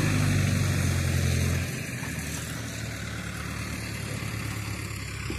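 An engine idling with a steady low drone, which drops in loudness about a second and a half in.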